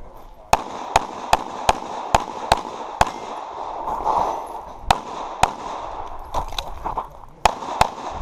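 Pistol shots in quick strings during a practical-shooting stage. First comes a run of seven fast shots, then two pairs a couple of seconds apart, as the shooter moves between target arrays.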